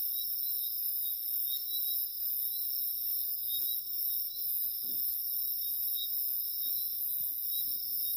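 Steady chorus of night insects such as crickets, a continuous high-pitched trill with no break.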